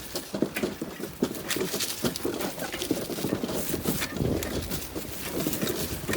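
Rapid, irregular knocking and rattling of a bicycle-towed trailer and its load of scrap jolting over rough ground.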